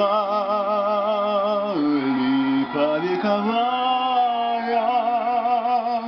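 Song music: long held melody notes that waver in pitch over a steady lower accompaniment, with a change of note about two seconds in.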